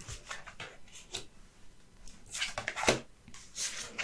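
Oracle cards being handled: soft paper swishes as cards slide over one another, with light taps and clicks and one sharper knock about three seconds in.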